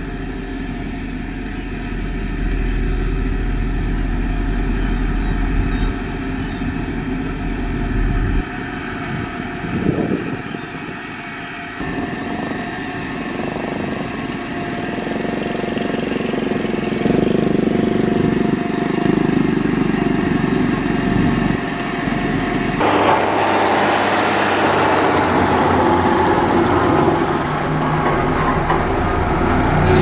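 Motor grader's diesel engine running steadily as it works gravel on the road. The sound shifts abruptly about twelve seconds in and again about two-thirds of the way through, turning harsher and noisier in the last stretch.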